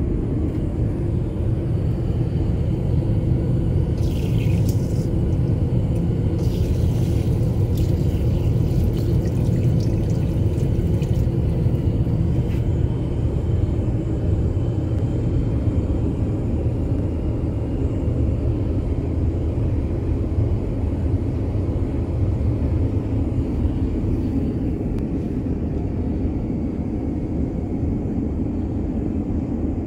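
Low, steady rumble of an Airbus A350-900 heard inside the passenger cabin. It is a little louder in the first half, with light rattling between about four and eleven seconds in.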